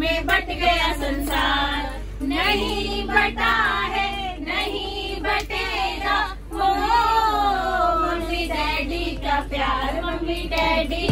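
Several voices singing together in long, wavering notes over a steady low hum.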